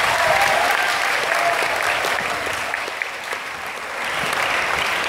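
Large audience applauding, a dense clapping that eases a little about three seconds in and picks up again near the end.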